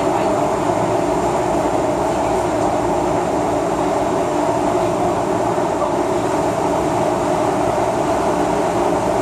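Steady running noise inside a moving MTR M-Train car: wheels on the rails and air rushing past in the tunnel, even and unbroken, with no braking or announcements.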